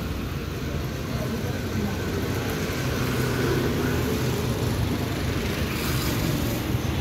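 Steady low rumble of road traffic, with faint voices in the background.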